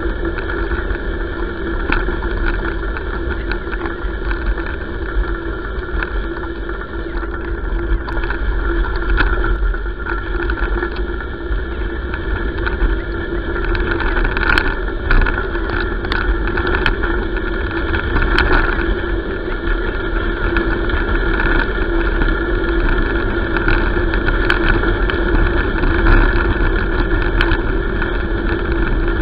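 Steady rumble and hiss of wheels rolling over a gravel road, heard through a handlebar-mounted camera, with wind on the microphone, a steady hum, and scattered clicks of gravel and bumps.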